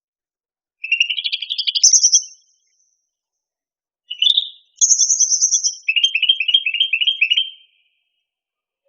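Cucak rante (cucak ranting) songbird singing two high, whistled phrases about two seconds apart. The second phrase ends in a quick run of repeated chirps, about five a second.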